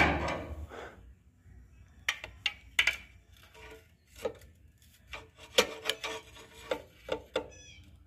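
Long metal bar scraping and clicking against the steel ring-gear teeth of the flexplate inside the starter opening: a string of irregular short knocks and scrapes beginning about two seconds in.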